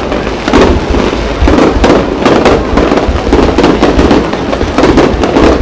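Aerial fireworks display: shells bursting in a rapid, unbroken run of loud bangs and crackles, several a second.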